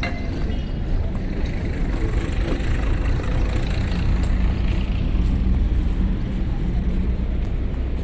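Steady low outdoor rumble with a light hiss above it, with no distinct events.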